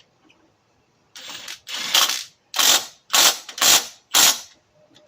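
Ratchet wrench tightening a 15 mm engine mount bolt: about six quick back-and-forth strokes starting about a second in, each a short run of clicks.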